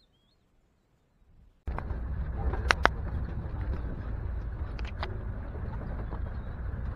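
A faint short bird chirp in near quiet, then, about a second and a half in, an abrupt switch to the steady rumble of a vehicle driving, heard from inside, with a few sharp knocks and rattles.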